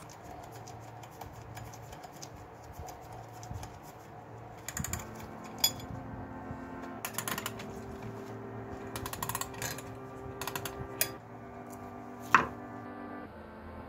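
Small metal clock parts clicking and tapping as knobs and a lever plate are fitted onto the metal back of an old alarm clock. There is a sharp click about five and a half seconds in and a louder one about twelve seconds in.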